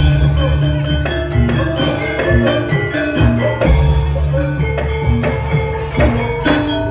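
Javanese gamelan music: bronze metallophones strike a ringing melody of sustained notes over drumming.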